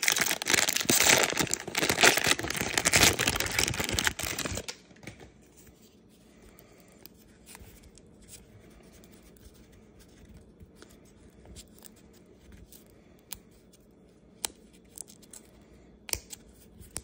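Foil wrapper of a 2023 Topps 206 NPB trading-card pack being torn open, crinkling loudly for the first four and a half seconds or so. After that come faint soft clicks and rustles as the cards are thumbed through one by one.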